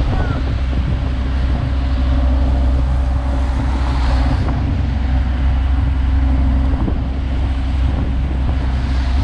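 Heavy diesel construction machinery running steadily, a low, even engine drone.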